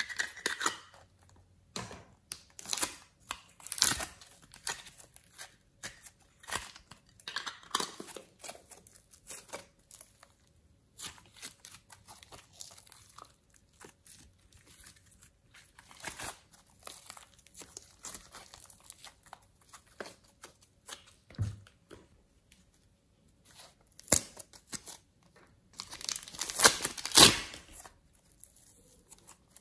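Slime being squished, stretched and pulled apart by hand, giving irregular sticky crackling and tearing sounds. The crackling is louder for a second or two near the end.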